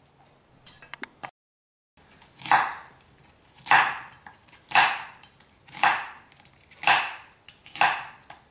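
Chef's knife cutting an onion half into wedges on a bamboo chopping board. Starting about two seconds in, there are six even cuts about one a second, each a short, crisp stroke through the onion layers down onto the board.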